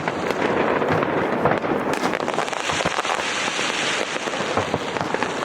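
Continuous crackling of a fireworks display, many small pops and crackles running together into a dense hiss-like patter, growing brighter about two seconds in.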